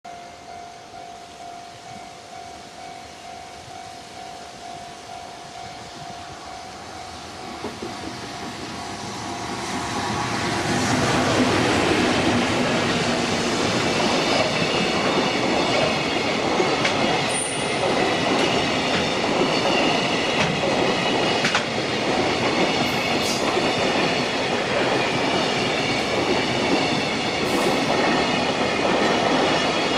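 Level-crossing warning bell ringing in a steady regular beat. About ten seconds in, a JR Freight container train comes up and passes close by: the loud rumble and clatter of wheels on rail under a long string of container flatcars, with a few sharp clanks.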